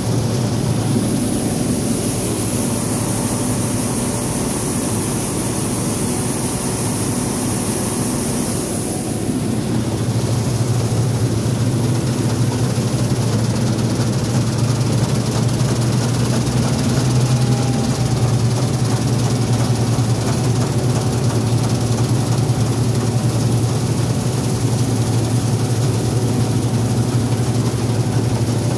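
New Holland TX36 combine harvester running steadily under load while cutting grain, a constant engine drone with machinery noise, heard from the cab. A high hiss over it cuts off about a third of the way through.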